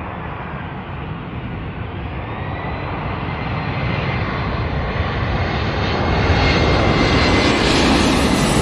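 Airbus A340-300's four CFM56 turbofan engines on landing approach, a low rumble with a thin high whine, growing steadily louder as the jet draws near.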